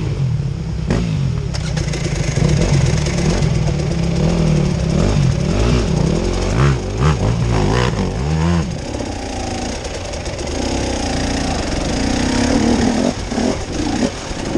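Off-road vehicle engine revving up and down repeatedly under load, its pitch rising and falling every second or so. About two-thirds of the way through the low engine note drops away and a lighter, higher engine sound takes over, with a few knocks near the end.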